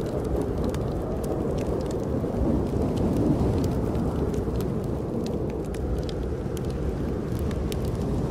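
Steady low roar of a snowstorm wind, with a wood fire in a fireplace crackling and popping in scattered sharp clicks over it.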